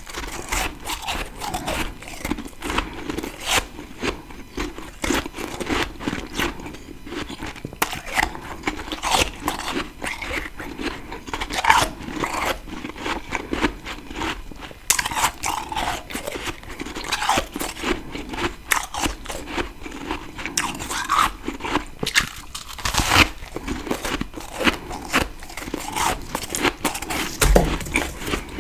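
Freezer frost being bitten and chewed: a dense run of irregular crisp crunches with no steady rhythm.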